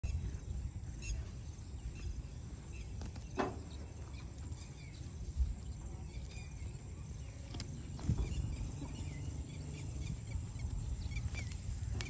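A horse grazing, with scattered crisp tearing and crunching as it pulls and chews grass, over a steady low wind rumble and a thin high-pitched whine. Faint bird chirps come in near the end.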